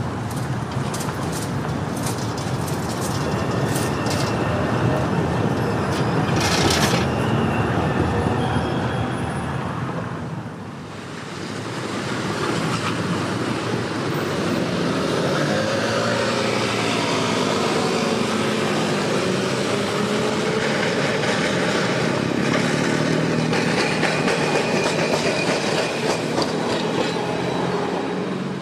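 An articulated electric tram rolls past on street track, its wheels clicking and rattling on the rails, with one sharp loud clack about seven seconds in. From about ten seconds it gives way to city junction traffic, with vehicle engines and motors rising and falling in pitch as they pull away.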